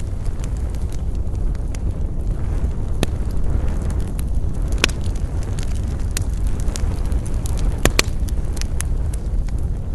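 Wood campfire burning: a steady low rumble with scattered sharp crackles and pops, the loudest snaps about three seconds in, near five seconds, and two close together around eight seconds in.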